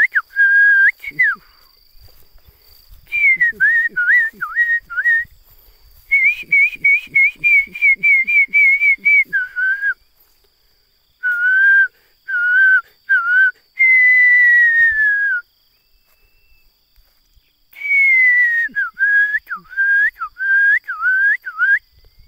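A person whistling loud, bird-like phrases close to the microphone. About seven short bursts are separated by pauses: slurred rising-and-falling notes, a quick run of repeated notes, and one long, slowly falling note. A steady, high insect drone runs underneath.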